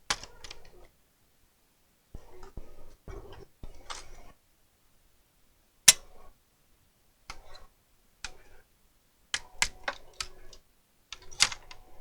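Plastic clicks, taps and rattles of a laptop's case and parts being handled during disassembly, in irregular bursts with short silences between. A single sharp click about six seconds in is the loudest.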